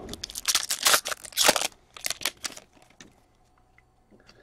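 A foil trading-card pack wrapper crinkling and tearing open as the hockey cards inside are pulled out and handled: a quick run of crackly rustles over about the first three seconds.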